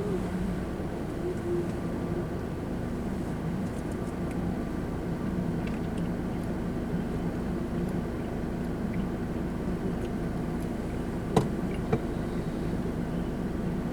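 Car driving, heard from inside the cabin: steady engine hum and road noise. Two short, sharp clicks come about half a second apart near the end.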